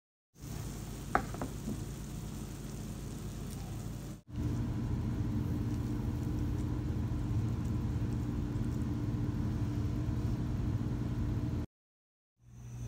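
A steady low machine hum with a sharp click about a second in; the hum cuts off abruptly twice and comes straight back.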